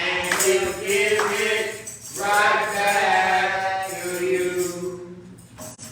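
Singing in a church service, with long held, wavering notes and a tambourine jingling along.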